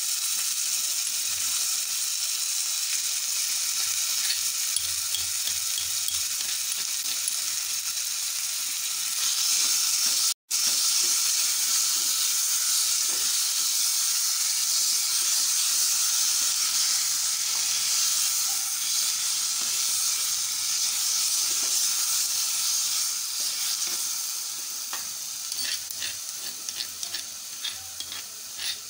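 Chopped onion, mint, garlic and green chilli sizzling in hot ghee with cumin in a small pan, stirred with a spoon. The sizzle is steady, breaks off for an instant about ten seconds in, and eases off near the end as short spoon scrapes and clicks come through.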